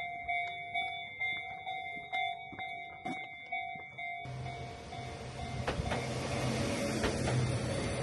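Japanese railway level-crossing warning bell dinging in a fast, even rhythm. About four seconds in, an Enoden (Enoshima Electric Railway) train comes through the crossing, and its running noise and low motor hum grow louder.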